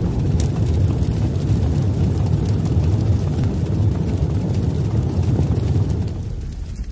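Intro sound effect: a steady, low rumble, like the tail of an explosion, that fades out near the end.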